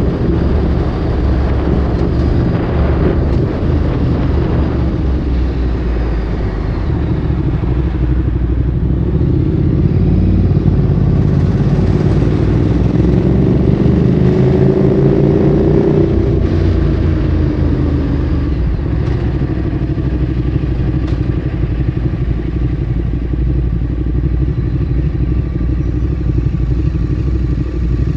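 Ducati Streetfighter 848's L-twin engine through a Termignoni exhaust, running at low revs. Partway through it revs up in a rising climb for a few seconds, then drops back to a steady low-rev run.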